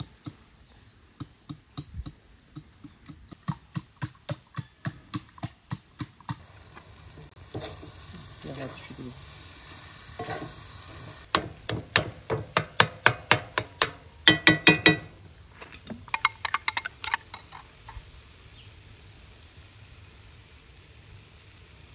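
Wire whisk beating eggs in a glass bowl with quick rhythmic clicking, then a spoon stirring greens in a frying pan with a light sizzle. More fast clinking and scraping follows in the middle, and it goes quiet near the end.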